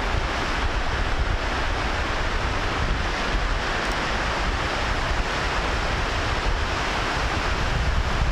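Steady rushing wind noise on the microphone of a camera moving at speed, a hiss over a deep buffeting rumble.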